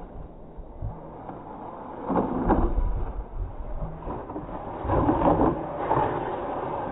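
Radio-controlled off-road truck driving on loose sand, its wheels spinning and churning in short spurts about two seconds in and again around five to six seconds in, over a low rumble.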